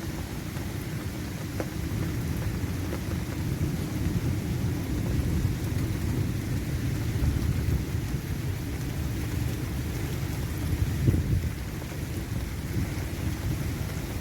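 Steady low, rumbling roar from a severe thunderstorm overhead, like continuous distant thunder, swelling slightly louder about eleven seconds in. It is the strange roaring sound that comes with little wind or rain at ground level, which the filmer takes for something happening high up in the storm.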